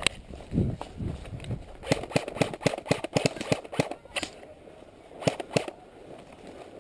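Airsoft guns firing: a quick string of sharp shots, about five a second for a couple of seconds, then two more shots about a second later.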